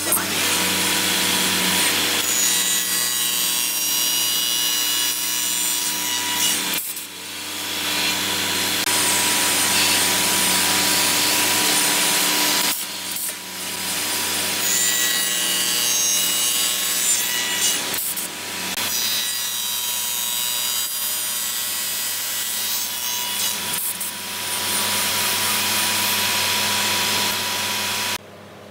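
Spindle moulder with a large cutter head running and cutting into clamped wooden boards. It gives a loud, steady cutting noise over the machine's hum, in four long stretches with short breaks between them.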